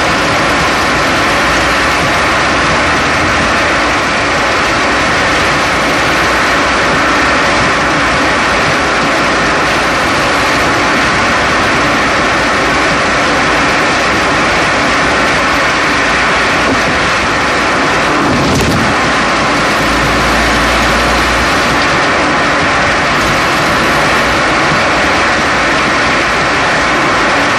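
Steady road and tyre noise from the front right wheel and strut of a 2011 Chevrolet Cruze while driving, picked up right at the suspension. A single short knock comes about eighteen seconds in.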